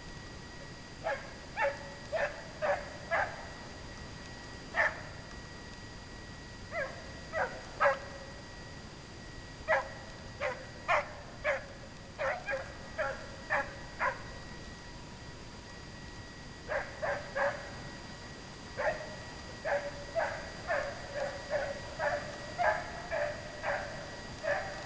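Scent hounds baying in runs of short yelps, several a second, in broken bursts that start about a second in and run almost without a break near the end: hounds giving tongue on a hare's trail.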